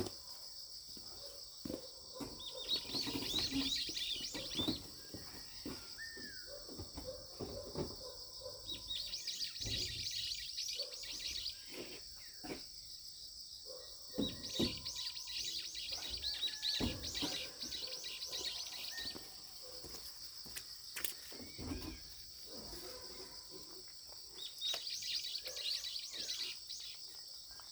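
Birds chirping in four bursts of rapid repeated notes over a steady high-pitched insect drone, with scattered short clicks and knocks.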